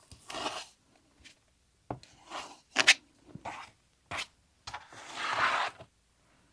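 Rotary cutter slicing through folded fabric along an acrylic template on a cutting mat: several short rasping strokes, the longest near the end, with a few sharp clicks in between.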